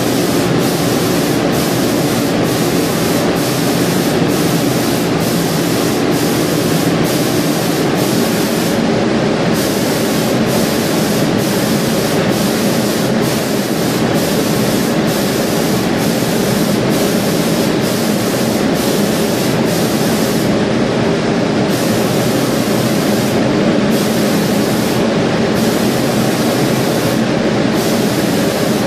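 Automatic marble spraying machine running: a loud, steady hiss from the spray head over a constant mechanical hum.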